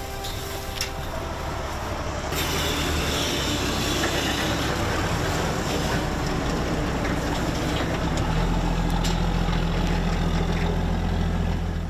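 Swamp buggy engine running steadily, its low hum growing louder and deeper from about eight seconds in.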